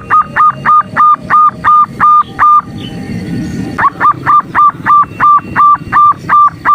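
Female zebra dove (perkutut) call, the kind used to lure and provoke male zebra doves. It comes as two runs of short, clear notes, about three a second, each note starting with a quick upward flick, with a pause of about a second between the runs.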